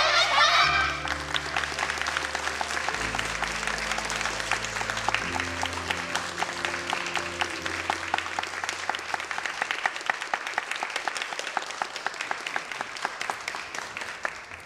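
Audience applauding, loud at first and slowly dying away, over background music of long held low chords that fade out partway through.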